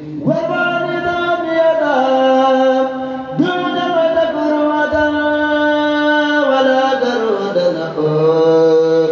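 Male chanting of an Arabic devotional poem in praise of the Prophet Muhammad, sung in long held, drawn-out notes. There are two long phrases, the second starting about three seconds in. Each opens with a rise in pitch and then steps and slides downward.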